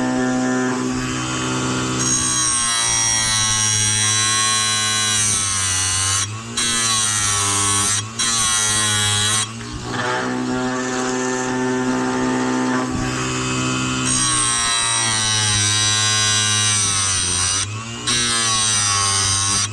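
Electric chainsaw-chain grinder running with a steady hum. Its pitch sags and recovers in two stretches as the grinding wheel is brought down onto the chain teeth, with a few brief breaks in the sound.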